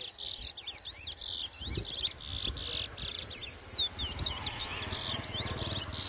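Towa-towa finches (chestnut-bellied seed finches) singing in a song race, a dense run of quick rising and falling whistled notes one after another. A low rumble sits under the song from about two seconds in.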